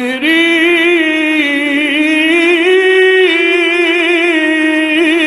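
A man reciting the Quran in the slow, melodic mujawwad style. After a quick breath at the start he holds one long ornamented note whose pitch wavers and rises a little midway.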